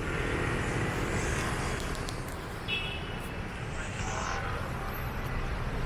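Steady rumble of city street traffic, motor scooters and cars passing, with a brief high tone about three seconds in.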